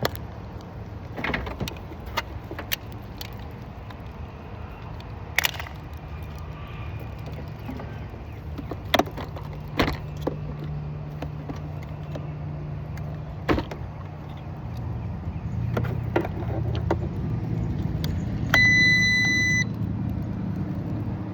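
Car engine idling steadily, with scattered clicks and knocks, and a single electronic beep lasting about a second near the end.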